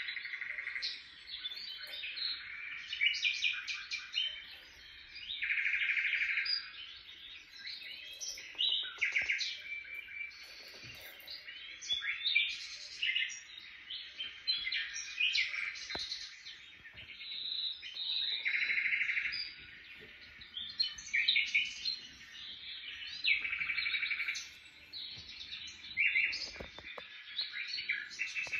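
Small songbird singing: a steady stream of high chirps and twitters, broken three times by rapid trills about a second long.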